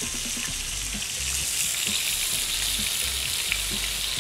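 Bison-and-wagyu burger patties sizzling steadily on a hot steel discada, with small crackles of spitting fat.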